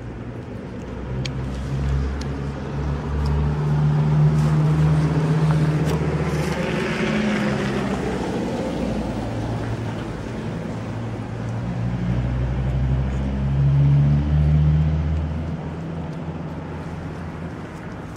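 A motor vehicle's engine running nearby, a low hum that grows loud and fades twice, with a rushing sweep of a pass-by about seven seconds in.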